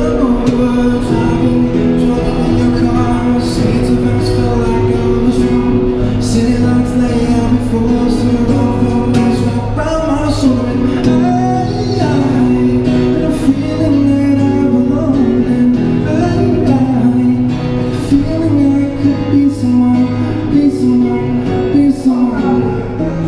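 A man singing into a microphone over his Yamaha acoustic guitar, both amplified through a small Roland Cube Street EX battery amp.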